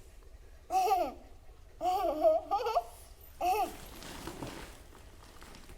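A young child's high voice babbling in three short bursts, the middle one longest and wavering up and down.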